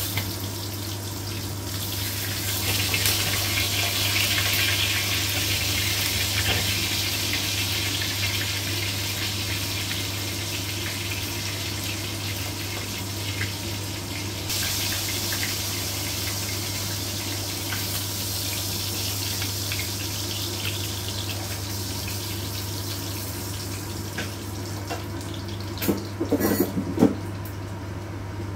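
Pork chops sizzling as they fry in hot oil in a nonstick pan: a steady hiss over a steady low hum. Near the end, a few short knocks of a utensil against the pan as the chops are lifted out.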